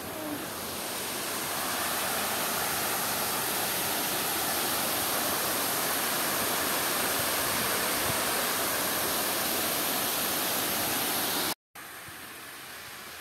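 Water cascading down the face of a masonry dam spillway: a steady rushing noise that swells over the first couple of seconds and stays even. About a second before the end it cuts off sharply and gives way to a quieter steady rush.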